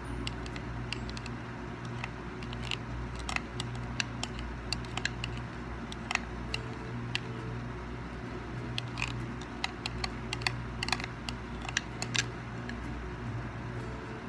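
Irregular sharp clicks and ticks, scattered a few to the second, over a steady low electrical hum.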